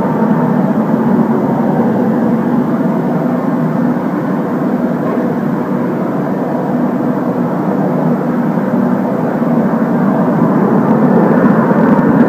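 PVC hose extrusion machine running in a factory: a loud, steady machine drone with a few held hum tones.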